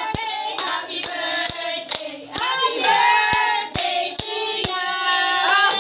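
A small group of people singing a birthday song together, with steady hand clapping about twice a second keeping time.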